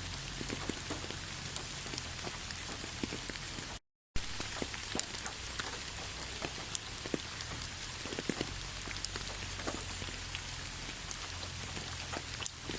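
Steady rain falling, with many individual drops ticking sharply over a constant hiss. The sound cuts out completely for a split second about four seconds in.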